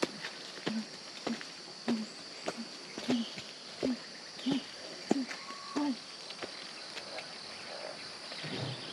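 Footsteps walking uphill at a steady pace, about three steps every two seconds, stopping about six seconds in, over a steady high drone of insects.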